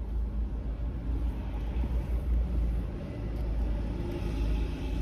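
Steady low rumble of a car heard from inside the cabin as it is driven slowly into a parking spot.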